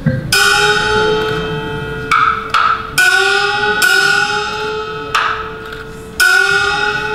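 Chinese opera percussion: a small gong struck four times, each stroke ringing for about a second with its pitch sliding slightly upward, with short dry percussion strokes between the gong strokes.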